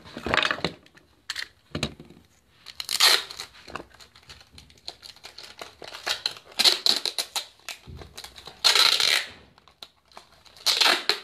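Packing materials being torn and rustled close to the microphone: about five loud tearing bursts, with small knocks and crinkles between.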